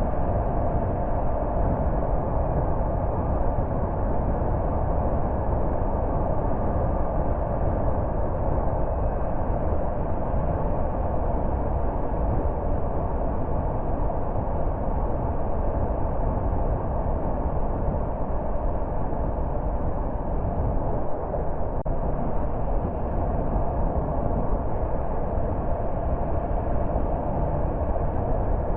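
Car driving along the road: steady tyre and engine noise at an even speed.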